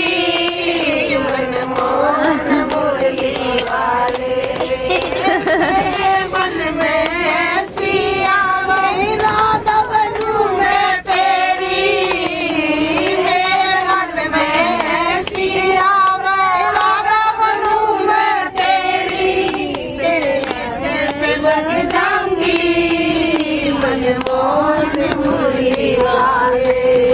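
A group of women and girls singing one melody together in unison.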